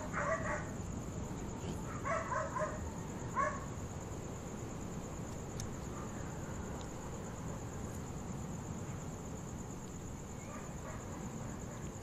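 Distant dogs barking in short volleys over the first few seconds, then once more faintly near the end, over a steady high drone of night crickets and a constant low rumble.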